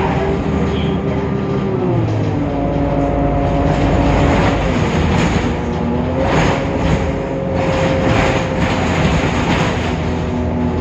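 Temsa Avenue LF city bus's DAF PR 228 diesel engine running under way through its ZF Ecolife automatic gearbox. The engine note drops in pitch in two steps, about two and four and a half seconds in, then rises again about six seconds in. The bus has a sound that is unusual for this model.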